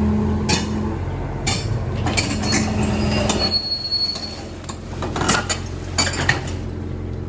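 Excavator engine running steadily under a string of sharp metal clanks and clinks, with a brief high squeal about halfway through, the sound of steel tracks and metal parts working against steel.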